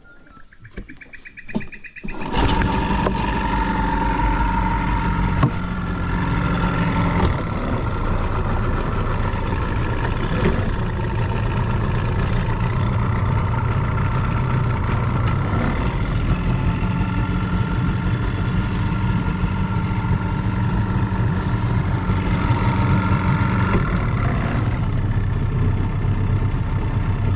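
Small outboard motor on a boat starts up suddenly about two seconds in, then runs steadily at cruising speed, pushing the boat along the river.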